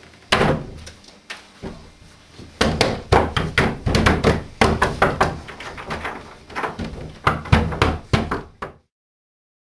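A door bangs shut, then hands pound on the closed door over and over, several blows a second, stopping abruptly near the end.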